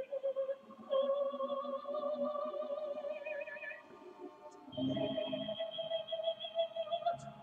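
Background music: a slow melody of long held notes with vibrato, moving to a new note about a second in and again near five seconds.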